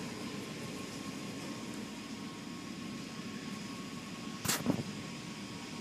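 Automatic car wash running, heard from inside the car: a steady machinery hum with water spray, and one brief loud hit against the car about four and a half seconds in as the cloth strips reach it.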